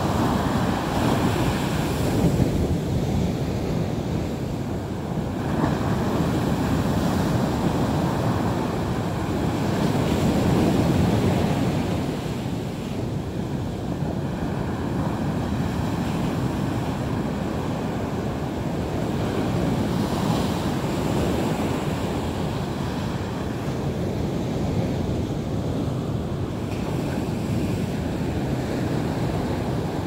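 Sea waves breaking and washing up a shore in a continuous rush, swelling and easing every few seconds.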